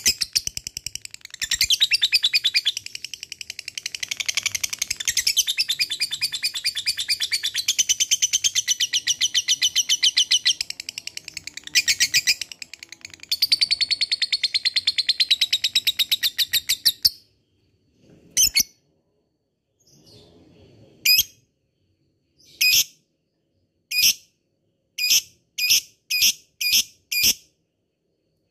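Lovebird singing its long 'ngekek' chatter, a fast unbroken run of sharp high chirps that cuts off suddenly after about seventeen seconds. Single short sharp calls follow, spaced apart at first, then about twice a second near the end.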